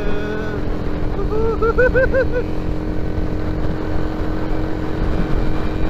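Motorcycle riding at steady road speed: wind rushing over the microphone, with the engine's steady hum beneath it. A little over a second in, a quick run of about six rising-and-falling pitched notes sounds for about a second.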